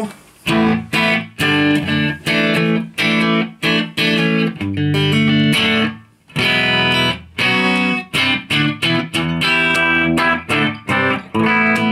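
Electric guitar played through a Carlos Ramírez RP tube amp head with KT88 power tubes on its clean channel, heard from the speaker cabinet. A run of chords and notes with short breaks, and a brief pause about six seconds in.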